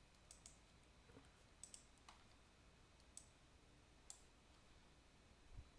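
Near silence with a few faint, irregular clicks and a soft low thump near the end.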